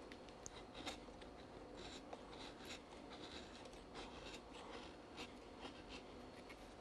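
Curved kitchen knife paring half-set plaster fill on the rim of an earthenware pot: faint, repeated short scraping strokes with small clicks. The plaster is still soft enough to cut cleanly without turning to dust.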